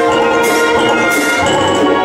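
Youth wind orchestra playing a held chord, with a sharp percussion stroke about every 0.7 seconds. Low brass notes come in about one and a half seconds in.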